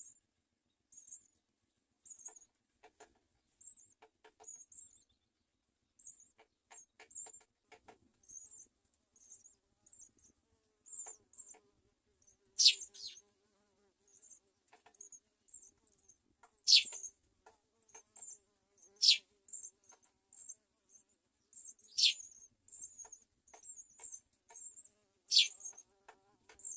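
House sparrow nestlings begging: thin, very high cheeps repeating quickly. Starting about halfway through come five louder calls that sweep steeply down in pitch.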